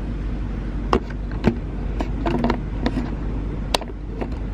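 Car engine idling with a steady low hum, heard from inside the cabin, with a few sharp clicks.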